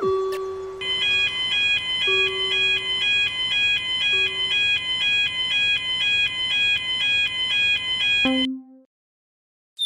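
Electronic Japanese railroad crossing warning bell, the 'kan-kan' alarm, ringing two alternating high tones about twice a second. It stops suddenly about eight seconds in.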